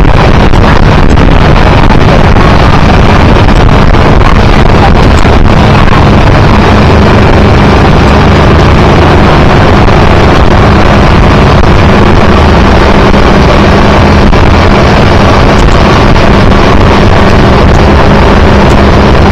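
Motorboat running at towing speed, its engine a steady low drone under heavy wind buffeting on the microphone. Loud and unchanging throughout.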